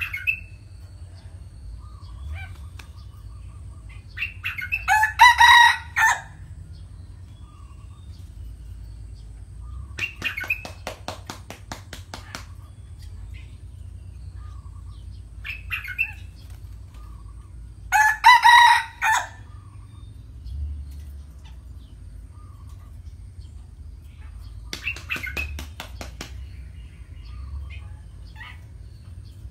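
Red junglefowl rooster crowing twice, each crow short, about a second long. Between the crows come bouts of rapid wing-flapping and a few soft chirps.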